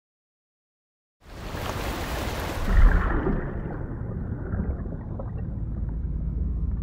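About a second of silence, then underwater ambience comes in suddenly as a rushing water noise. It swells to its loudest about three seconds in, then the hiss thins and a steady low rumble remains.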